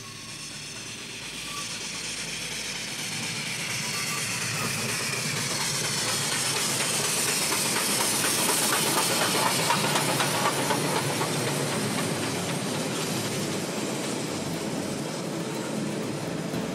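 Steam locomotive hauling a passenger train, approaching and passing at speed: it grows louder over the first half, with a hiss of steam and then a rapid clatter of carriage wheels over the rail joints as the cars go by.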